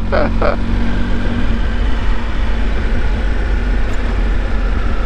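Motorcycle running at a steady, low riding speed, its engine a steady hum under a constant low rumble of wind noise on the rider's microphone.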